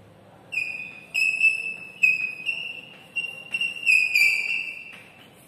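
Chalk squeaking on a chalkboard while a word is written: a string of high-pitched squeals, one with each stroke. Each lasts a fraction of a second, and the longest comes near the end.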